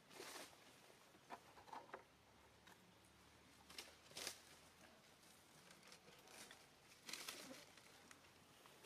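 Near silence, with a few faint, brief rustles and clicks scattered through it.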